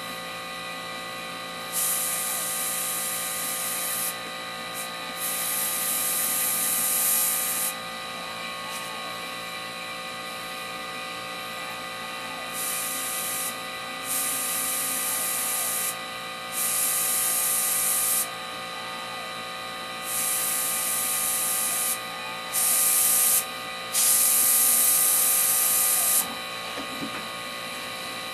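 Airbrush spraying paint in short bursts of hiss, about eight of them, each one to three seconds long and cut off sharply as the trigger is pressed and released, over a faint steady hum.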